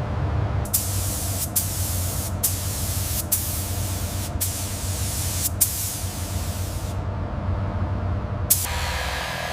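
Pressurised spray hissing from a nozzle, running in stretches of about a second with brief cut-offs, over a steady low hum. It stops for a moment near the end, then starts again.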